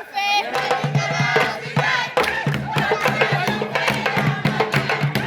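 Music: a group of voices chanting together over fast, steady percussion strikes.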